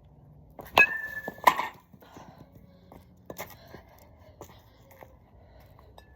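One-piece alloy baseball bat (2021 Marucci CAT9) striking a ball off a tee: a sharp crack with a brief metallic ring, then a second loud knock well under a second later, followed by a few faint clicks.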